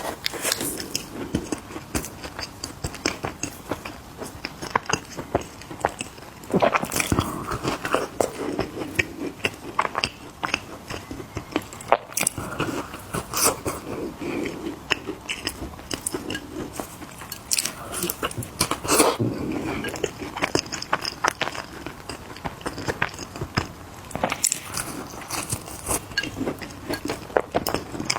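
Close-miked crunching and chewing of mini cookies: many sharp crisp crunches and mouth sounds, with heavier bites every few seconds.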